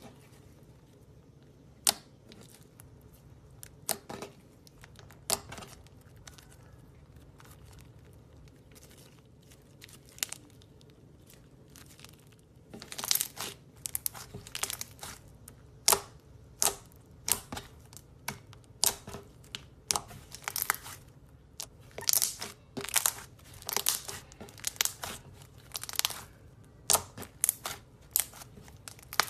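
Slime being handled, crackling and popping in sharp clicks: scattered at first, then coming thick and fast from about halfway.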